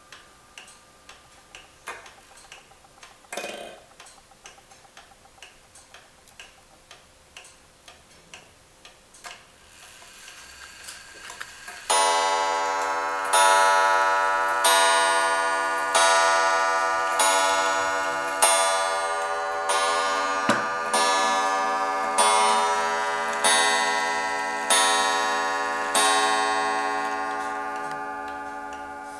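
Pendulum wall regulator clock ticking steadily, then striking twelve on its coiled wire gong: twelve evenly spaced, bell-like strikes about 1.3 seconds apart, each ringing on and slowly dying away. A short whir from the striking train comes just before the first strike.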